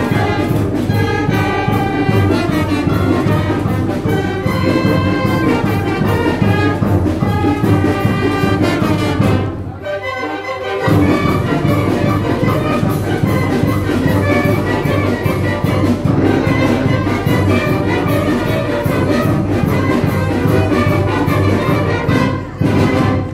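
Oaxacan village wind band (banda filarmónica) playing a festive piece, with a short break about ten seconds in before it plays on.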